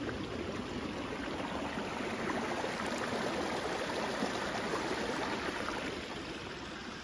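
A small creek running over rocks through the undergrowth: a steady watery hiss that eases slightly near the end.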